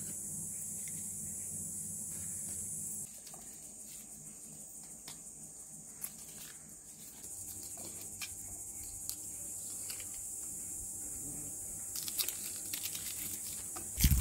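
Steady high-pitched insect chorus, with small clicks and, in the last couple of seconds, the crinkle of dry onion skin being peeled with a knife, ending on a thump.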